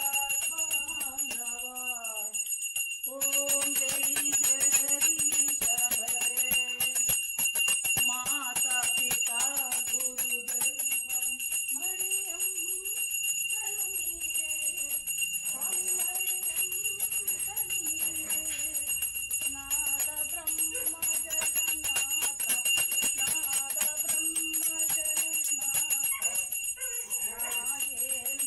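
A brass puja hand bell rung continuously with rapid, even strokes, its ringing tones held steady, while a voice sings a slow devotional melody over it during an aarti.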